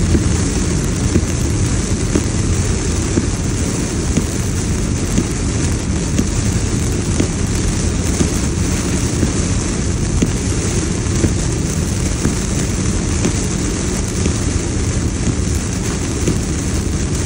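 Heavy hurricane rain hitting the car's roof and windshield, heard inside the cabin with a steady low rumble from the car and its tyres on the flooded road. Small ticks of rain impacts run through a constant hiss.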